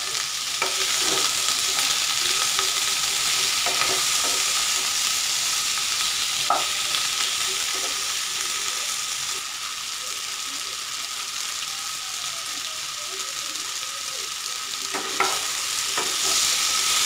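Cubed potato and brinjal sizzling in oil in a non-stick kadai while a wooden spatula stirs and turns them, with scattered scrapes and knocks of the spatula against the pan. The vegetables are being sautéed with turmeric and salt.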